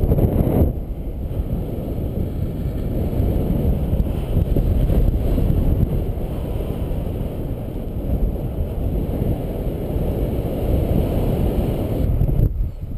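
Wind from a paraglider's forward flight buffeting the camera microphone: a steady low rush, louder for the first half-second.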